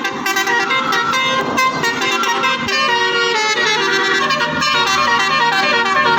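A car's basuri musical horn playing a telolet-style tune: a fast melody of short notes that change pitch in quick succession.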